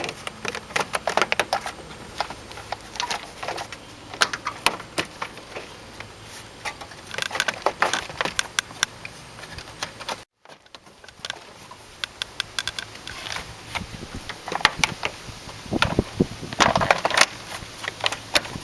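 Honda Civic's rocker panel cover being worked loose by hand: an uneven run of clicks, cracks and snaps as its clips let go, in clusters.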